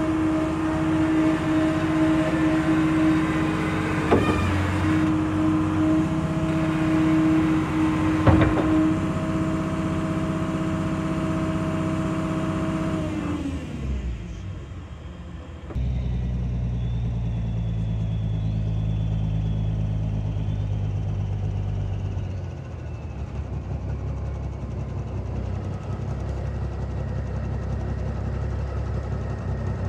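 John Deere 404 six-cylinder diesel of an excavator working hard with a steady tone as the machine climbs onto a steel lowboy trailer, with two sharp clanks about 4 and 8 seconds in. The engine then winds down about halfway through. After a short lull a deeper diesel idle starts suddenly and runs on.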